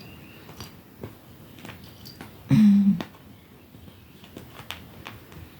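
A domestic cat gives one short, low, steady grumbling meow about halfway through while kneading, its complaining while it kneads. Faint soft taps and rustles come before and after it.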